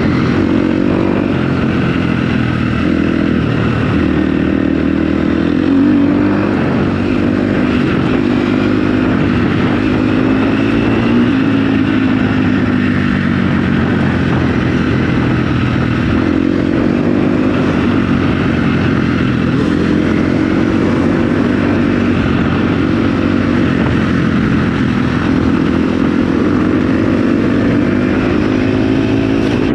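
KTM 250 SX-F four-stroke dirt bike engine running hard as it is ridden, its pitch rising and falling every few seconds with throttle and gear changes.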